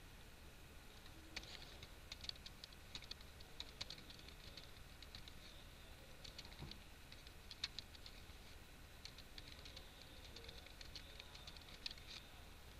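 Faint typing on a computer keyboard, in three short runs of keystrokes with pauses between them.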